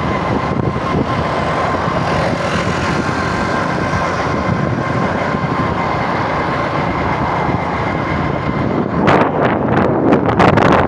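Steady road-vehicle noise, an even rumble with a faint steady whine through it. Near the end, irregular gusts of wind hit the microphone.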